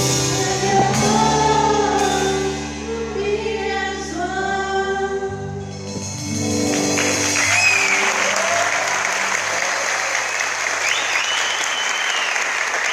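Two women singing the held closing notes of a song with keyboard and band accompaniment, ending about halfway through. Audience applause follows, with a couple of high calls from the crowd.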